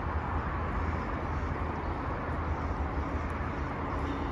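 Steady outdoor background noise: a low, fluttering rumble with an even hiss over it, with no distinct event standing out.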